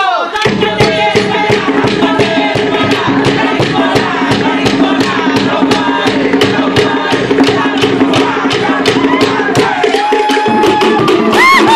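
Cook Islands drumming: wooden slit log drums and hand drums beating a fast, even rhythm of about four strokes a second. A few high calls ring out over the drums near the end.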